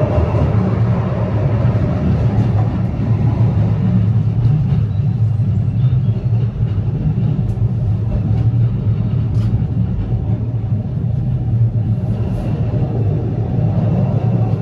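Steady low rumble of a road vehicle in motion, even in level throughout.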